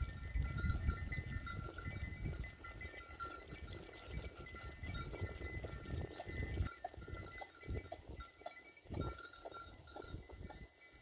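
A herd of goats on the move over a stony track: bells on the animals ringing steadily, with scattered clicks of hooves on the stones. A low rumble is heard in the first half, quieter later.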